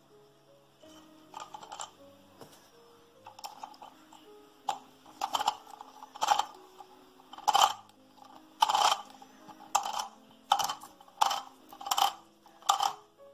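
Comandante C40 hand grinder's grind-adjustment wheel turned by hand on the axle, clicking through its settings: single sharp clicks, sparse and faint at first, then louder and coming about every 0.7 seconds from the middle on.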